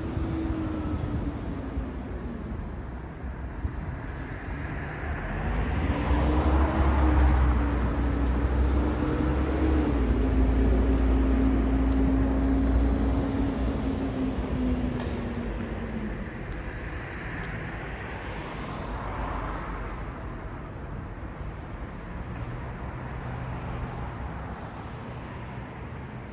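City street traffic: a large vehicle passes close by over steady traffic noise. Its engine note rises and falls, and a deep rumble is loudest for several seconds in the middle.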